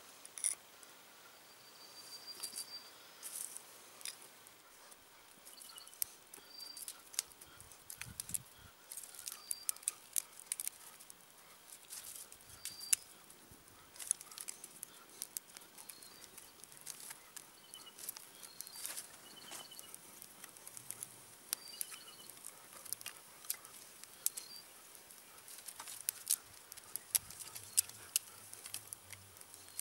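Dry wood crackling and snapping in quick irregular cracks, with a bird's short chirps now and then.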